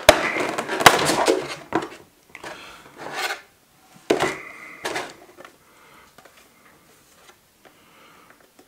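Handling noise from a Funko Pop box and its plastic packaging as the figure is taken out: rustling, scraping and knocks, loudest in the first two seconds, with short bursts about three and four seconds in, then only faint handling.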